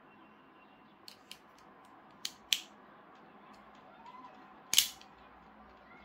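Italian stiletto switchblade's metal mechanism clicking: two light clicks, two sharper clicks a little after two seconds in, then a loud ringing snap near the end as the spring-loaded blade fires open.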